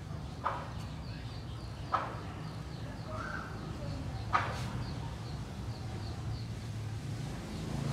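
Birds calling: three short, sharp chirps about two seconds apart over a faint, quick, even chirping, with a low steady hum underneath.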